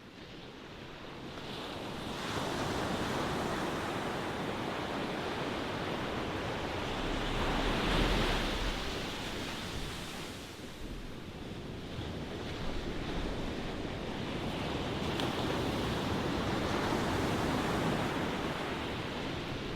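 Ocean waves breaking and washing ashore, a steady rush of surf that swells and eases in slow surges, loudest about eight seconds in.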